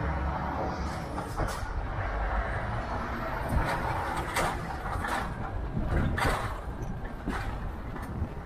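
Heavy semi-trailer truck driving, heard from the cab: a steady low engine and road rumble with a series of short sharp hisses and knocks.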